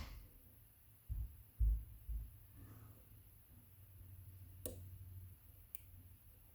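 Handling noise from picking a small dimple cam lock: three dull low thumps from about a second in, then two sharp, light clicks near the end.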